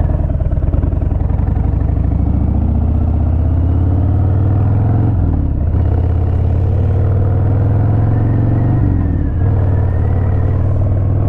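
2018 Harley-Davidson Fat Bob's Milwaukee-Eight V-twin accelerating away from an intersection, its pitch rising through the gears, with upshifts about five seconds and nine seconds in.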